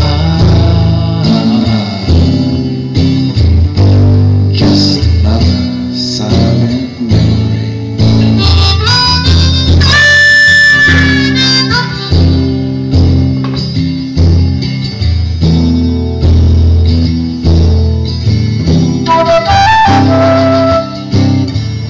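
A harmonica solo over acoustic guitar accompaniment, played live. Near the end the harmonica gives way to a flute playing over the guitar.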